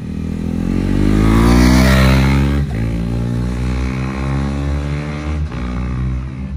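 KTM 390 Adventure's single-cylinder engine and exhaust accelerating past, pitch rising to its loudest about two seconds in, then two gear shifts as it pulls away.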